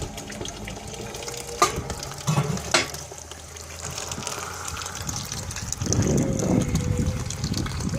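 Rocket stove fire burning paper bricks with a steady rushing draft, broken by two sharp crackles in the first few seconds; a louder low rumble comes in about six seconds in.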